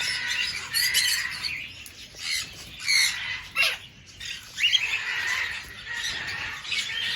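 A flock of cockatiels calling, with repeated harsh squawks and chirping calls overlapping at irregular intervals.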